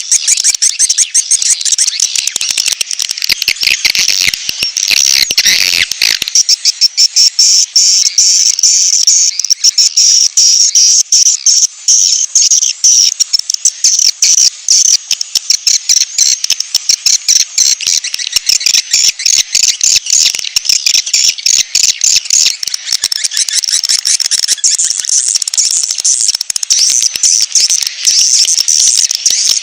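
Bird-lure (suara pikat) recording: a dense, continuous stream of rapid, high-pitched chirps and ticks, many per second, used to call in wild birds.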